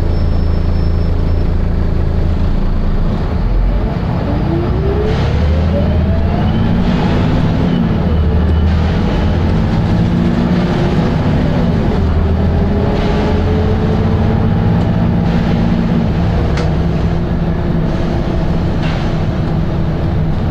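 Volvo B7RLE bus's six-cylinder diesel engine being worked hard: its note climbs steadily as the bus accelerates from about three seconds in, then runs on with small dips and rises between gears, with a few rattles.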